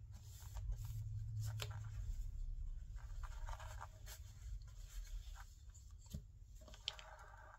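Faint scraping and scattered small clicks from paint tools being handled, over a low steady hum.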